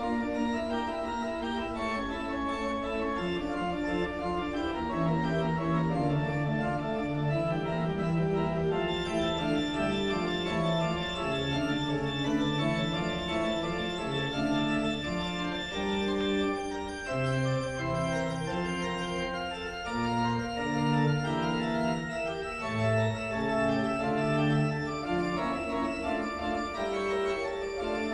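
Organ music: sustained chords over a bass line that moves from note to note about every second.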